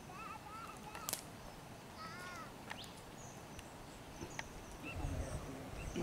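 Birds calling in the open air: a few short arching whistled notes at the start and again about two seconds in, with thin high chirps scattered through, over quiet outdoor background. A single sharp click comes about a second in, and a low rumbling noise swells near the end.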